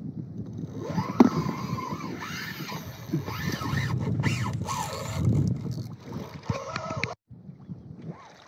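Water and wind noise around a kayak as a fish strikes the live bait and bends the rod, mixed with busy rattling and ticks. The sound cuts off abruptly about seven seconds in, and quieter water noise follows.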